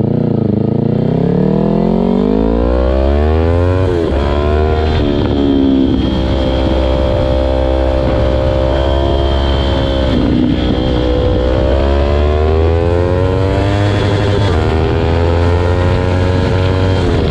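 Yamaha R3's parallel-twin engine running through an Akrapovic aftermarket muffler, accelerating under load. Its pitch climbs, falls sharply at a gear change about four seconds in, holds steady, dips again about ten seconds in and climbs once more.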